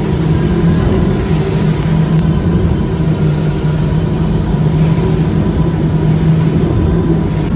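Outboard engines of a 47-foot Freeman catamaran running steadily at cruising speed, a constant low drone under rough rushing noise.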